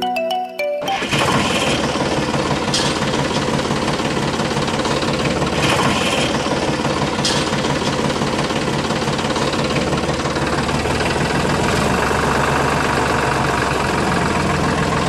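A short marimba-like music jingle ends about a second in, then an engine runs steadily and evenly without a break.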